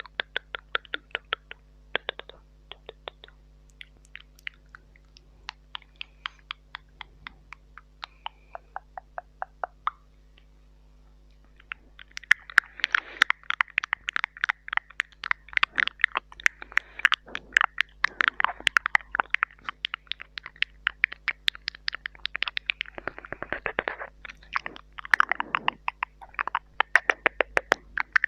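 Wet ASMR mouth sounds made right up against a small microphone: tongue clicks and smacks in the 'tk', 'sk' and 'chucko' style. They start as separate clicks, about two to three a second, and at about halfway become a dense, fast stream of wet clicking and smacking. A faint steady electrical hum lies underneath.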